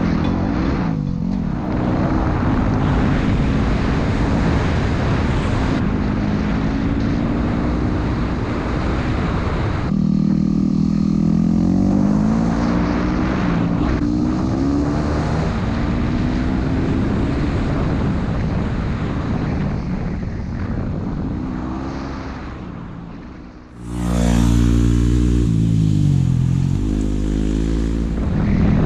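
Dual-sport motorcycle engine running on the move, its pitch rising and falling with throttle and gear changes. The sound fades briefly near the end, then comes back louder and fuller.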